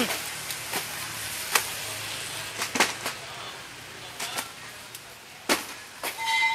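A scattering of sharp knocks and clacks over steady background noise. A steady high tone sounds near the end.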